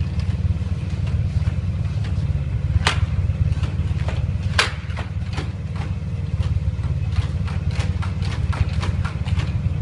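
A motor vehicle's engine idling steadily with a deep rumble, over scattered sharp clicks and knocks. Two louder clicks come about three and four and a half seconds in, and a quick run of them near the end.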